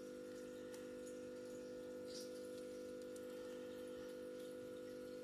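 Steady electrical hum of even, unchanging tones, with a faint light tick about two seconds in.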